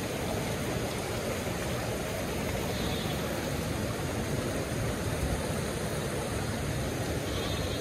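Shallow mountain stream rushing steadily over rocks.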